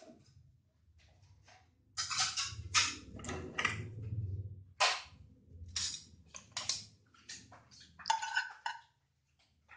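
Butter melting in a hot non-stick pan, sizzling in short, irregular crackles and spits as its water boils off, over a faint low hum.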